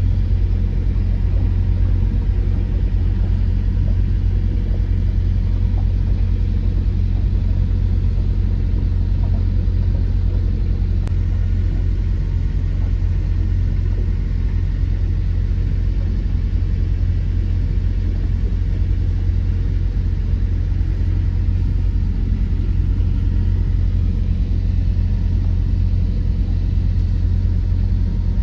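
A motor cruiser's inboard engine running steadily under way: an even, low hum with no change in speed.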